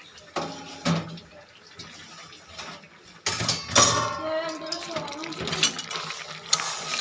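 Steel pot lid clanking against a metal pan twice near the start. From about three seconds in, voices in the background mixed with light clinks of steel pots and utensils.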